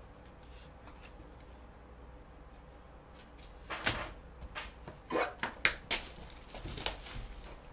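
Handling and opening a cardboard trading-card box: after a few quiet seconds, a quick run of sharp taps, knocks and rustles from gloved hands on the box.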